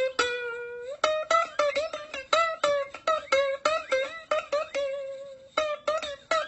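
Music: a plucked string instrument, ukulele-like, playing a quick run of short notes, about three a second.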